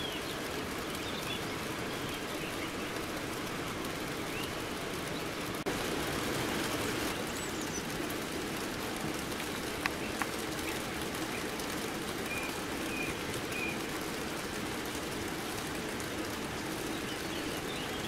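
Steady rain falling, with birds giving short chirps now and then. There are two sharp ticks about ten seconds in.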